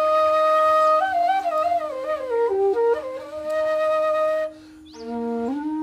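Background music: a flute playing a slow melody of long held notes and wavering runs over a steady drone. The phrase breaks off about four and a half seconds in, and a new phrase starts lower and climbs.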